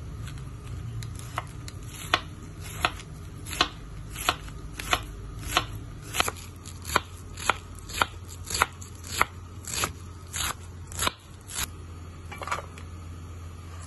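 Kitchen knife slicing cabbage on a bamboo cutting board: sharp knocks of the blade on the board, about three every two seconds, stopping shortly before the end, over a steady low hum.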